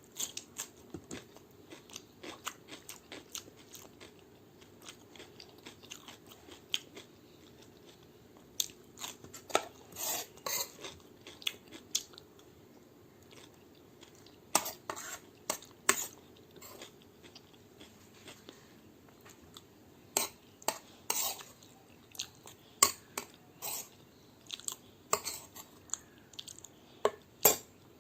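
Close-up chewing with crisp crunches of raw vegetables, in irregular clusters, mixed with light clinks of a plate and cutlery.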